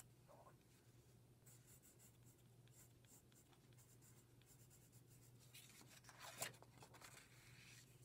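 Pencil scratching on paper in short, faint strokes as a name is written, under a steady low hum. A louder brief scrape comes about six seconds in.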